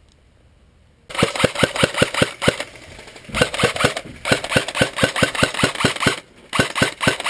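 Airsoft electric rifle firing rapid single shots, about six a second, in four strings with short pauses between them. The trigger is being pulled fast on semi-auto.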